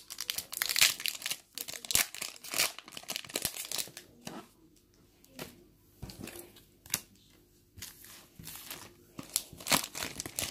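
Foil trading-card pack wrappers crinkling and tearing as the packs are ripped open, in irregular bursts, busiest in the first few seconds and again near the end.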